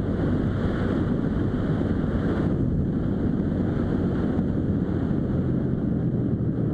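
Wind buffeting the microphone of a Suzuki SV650 motorcycle riding at about 80 km/h, over the low sound of its V-twin engine running. The wind hiss eases slightly after about two and a half seconds.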